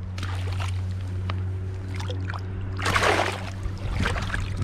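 Water splashing as a smallmouth bass is let go from the hands into shallow river water: several small splashes, then one louder splash about three seconds in, over a steady low hum.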